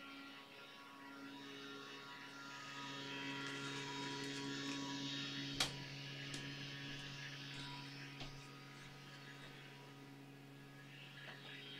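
Low, steady electrical hum, with faint scraping from a bristle brush working oil paint on a palette swelling in the middle, and one sharp tap a little past halfway.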